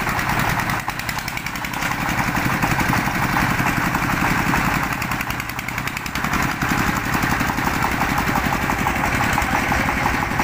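Single-cylinder diesel engine of a công nông farm tractor-truck running steadily, with a fast, even chugging pulse.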